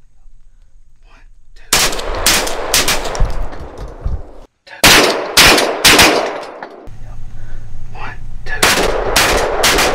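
12-gauge shotguns firing buckshot in a rapid volley, shots about half a second apart, starting nearly two seconds in and coming in three bursts.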